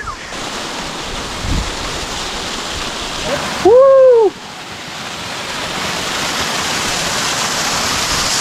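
Steady rushing noise of a waterfall, growing louder toward the end. About halfway through, a short voiced cry rises and falls in pitch, standing out above the water.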